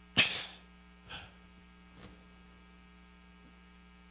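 Steady electrical mains hum through the sound system. A single sharp noise close on the handheld microphone just after the start is the loudest thing, with a fainter one about a second in.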